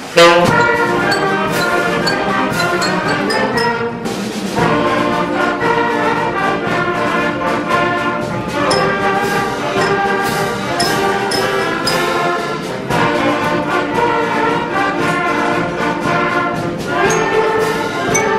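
A school wind band, the intermediate band with trumpets and trombones, playing a piece. It comes in suddenly on a loud full chord, with sustained brass and drum strikes, and eases briefly about four seconds in before carrying on.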